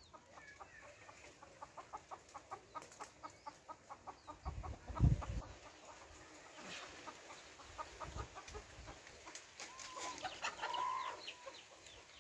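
Chickens clucking in a rapid run of short repeated notes, with a few longer calls later and a low thump about five seconds in.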